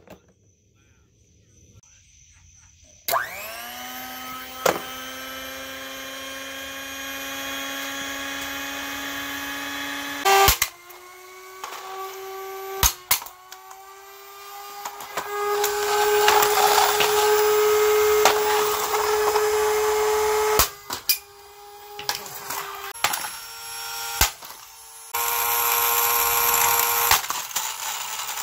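An Eastern Electric hand mixer's motor starts about three seconds in, whines up to speed and runs with a steady hum. A golf club strikes it several times with sharp hits. After the hits the motor's note sits higher and it runs rougher and noisier as the mixer is being smashed while running.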